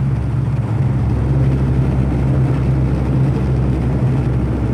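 Steady engine drone and low hum of a passenger airliner heard from inside the cabin as it comes in at the end of the flight, around the landing.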